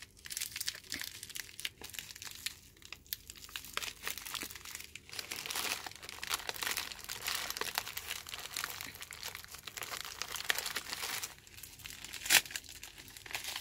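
Thin plastic gift wrapping crinkling and crackling as hands pull and work it open, its tape being picked off, with one sharper, louder crackle near the end.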